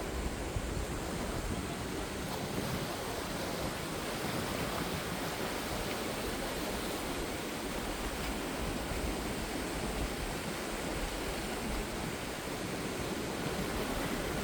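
Ocean surf: a steady rush of waves, with no single break standing out.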